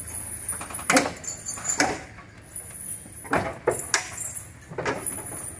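Irregular sharp knocks and clanks, about six of them, as an elephant heaves itself up onto the bed of a lorry, its weight and chains shifting against the truck.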